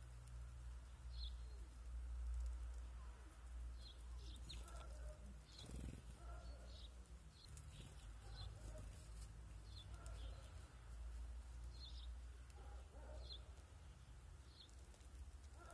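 Small songbirds chirping: short, high calls repeated every second or so, over a faint steady low rumble.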